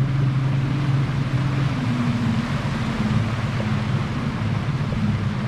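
A boat's outboard motor running steadily, its pitch dipping slightly about two seconds in.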